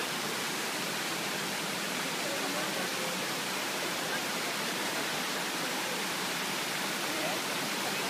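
Shiraito Falls, a broad curtain of many thin streams spilling over a low rock wall, rushing steadily, with faint voices of people underneath.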